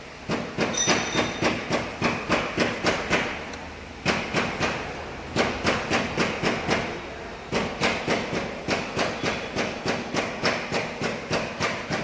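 Rapid metallic clicking, about four or five sharp clicks a second in several runs with short breaks, with a brief metallic ring about a second in, from hand-tool work on a dismantled diesel engine.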